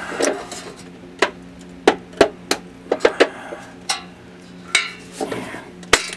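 Irregular sharp metallic clinks and taps, about a dozen, of a hitch bolt and its plate knocking against the car's steel frame rail as they are worked through the frame holes with a fish wire.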